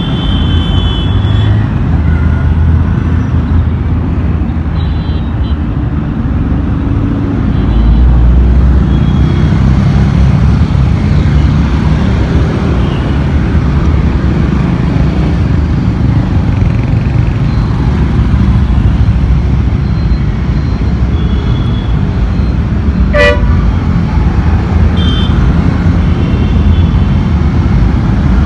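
Mixed road traffic of cars, motorcycles and a bus running and passing, a steady low rumble, with short horn toots several times.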